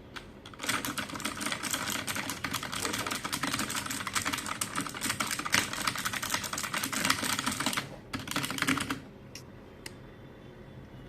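Fast typing on a Royal Kludge RK84 mechanical keyboard with clicky blue switches: a dense run of key clicks for about seven seconds, a short burst after a brief pause, then a few single keystrokes.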